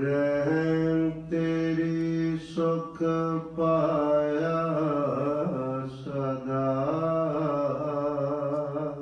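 A man's voice chanting a slow devotional melody, holding long steady notes with short breaks, then bending the pitch in drawn-out turns about halfway through.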